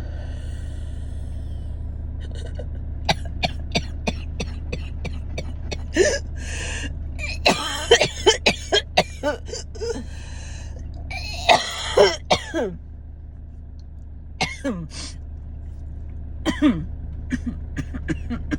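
A woman's dry asthmatic cough: several bouts of short, sharp coughs, with deep wheezy breaths drawn in between. It is a cough from airways still inflamed after an asthma attack, with no chest infection behind it.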